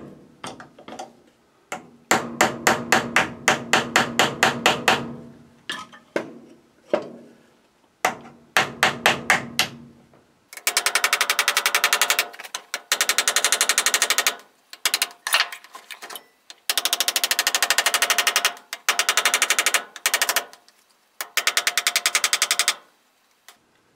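A small steel hammer taps on a brass ferrule, peening its edge down tight against the wooden handle to form a crown. In the first half the taps come in short runs of a few a second. From about ten seconds in they come in long runs of very fast, light taps, almost a rattle.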